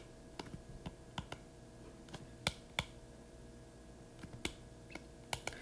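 Hard stylus tip tapping and clicking on a tablet's glass screen while handwriting, giving irregular light clicks, two or three a second.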